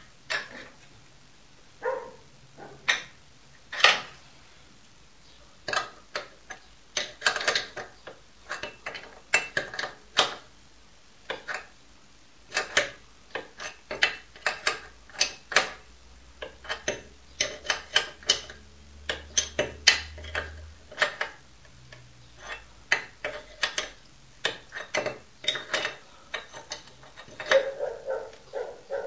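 Irregular sharp metallic clicks and clinks, at times several a second, of metal parts and tools being handled on a mini lathe's steel bed and carriage while a dial indicator on its stand is set against the bed.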